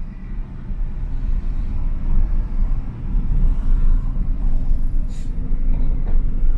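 Engine and road rumble heard inside the cabin of a Fiat Palio as it drives along a street.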